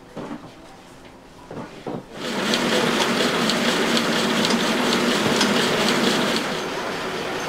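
A few light knocks, then about two seconds in a machine starts and runs loudly with a fast, regular rattle, easing to a lower steady running near the end.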